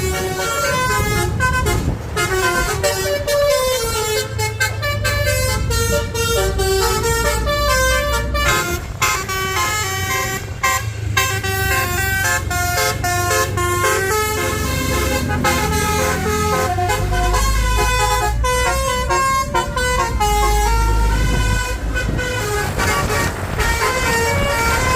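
Basuri multi-tone 'telolet' air horn on a bus, playing a long, quick melody of short notes that step up and down in pitch, with the bus engine rumbling underneath and swelling twice in the second half.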